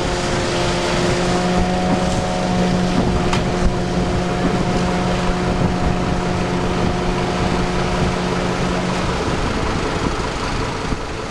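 Magirus turntable ladder fire truck's engine running with a steady droning hum while the ladder is worked; the hum stops about nine seconds in. Wind noise on the microphone is heard with it.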